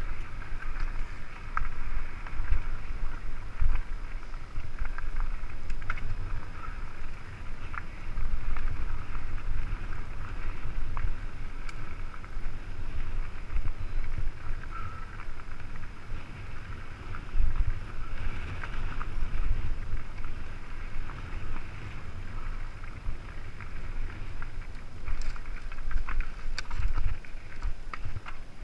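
Mountain bike riding down a rough, stony dirt singletrack: a steady rattling hiss from the tyres and bike over the ground, scattered sharp clicks, and low wind rumble buffeting the bike-mounted microphone.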